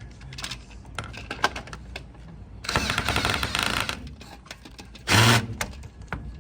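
A screw being driven in with a cordless power driver: a buzzing run of rapid strokes about a second long roughly three seconds in, and a shorter, louder burst about five seconds in, among small clicks of handling screws and parts.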